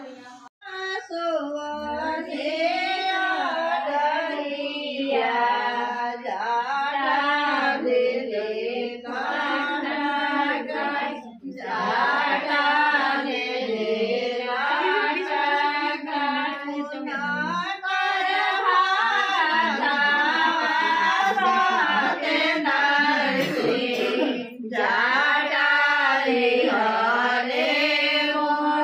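A group of women singing Chhath devotional folk songs together, unaccompanied, in long phrases with short breaks between them.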